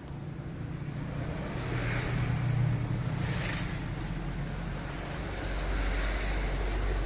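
Large KDK ceiling fan coasting down after being switched off: whooshing air that swells and fades in slow waves over a low steady hum.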